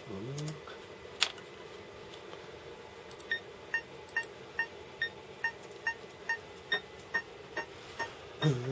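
Computer metronome click track: identical short beeps, a little over two a second, starting about three seconds in, over a faint steady hum. A single sharp click about a second in.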